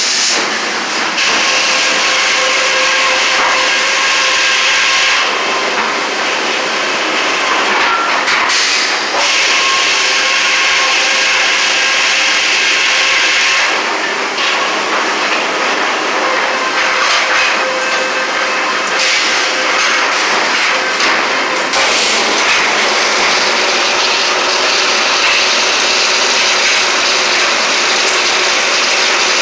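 Sawmill circular head saw and log carriage running, the saw cutting a log. A loud, continuous machine din with a steady whine, its character changing every few seconds as the carriage moves and the cut goes on.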